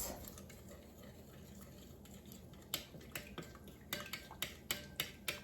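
Spoon stirring melted butter with seasonings, clinking against the dish in a run of light taps, about three a second, starting a little under three seconds in.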